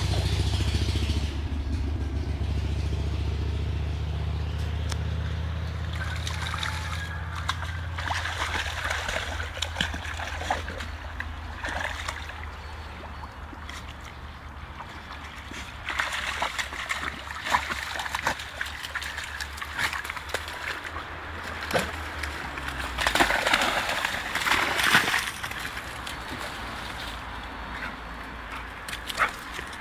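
American Staffordshire terrier wading and splashing in shallow muddy creek water, with irregular sloshes and splashes that are heaviest about two-thirds of the way in. A low steady hum lies underneath and stops about two-thirds of the way through.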